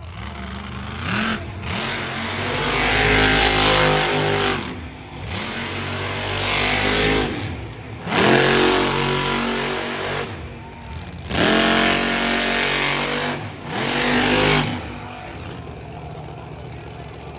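Monster truck engine revving hard in repeated surges, its pitch climbing and falling with each burst of throttle, about five times, then dropping back to a lower steady running near the end.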